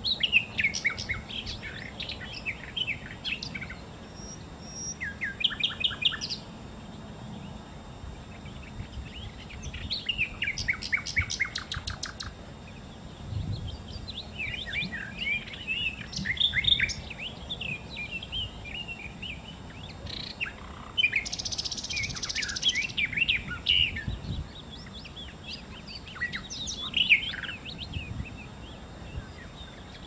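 Lesser shortwing (sikatan londo) singing in bursts of quick, high, twittering phrases separated by short pauses, with a fast rattling trill about ten seconds in.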